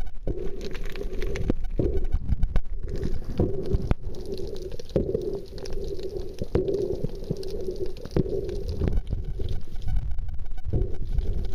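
Muffled sound of water moving around a camera held underwater: a low rumbling drone that comes and goes, with scattered sharp knocks and clicks.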